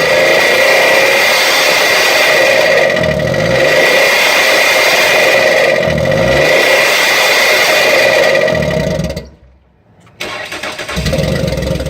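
Ford car engine running with no oil in it, revved down and up again about every three seconds, with a steady high whine over the engine note. The sound drops out for about a second near the end, then the engine is heard again.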